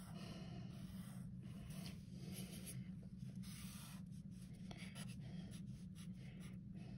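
Sharpie felt-tip marker drawing on paper in short, irregular strokes, over a steady low hum.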